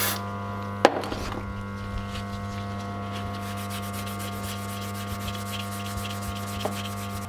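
Rhythmic back-and-forth rubbing of an abrasive Scotch-Brite pad on a spray-lubed steel tailshaft, polishing off rust. It is a long run of even strokes, preceded by a sharp click about a second in, over a steady electrical hum.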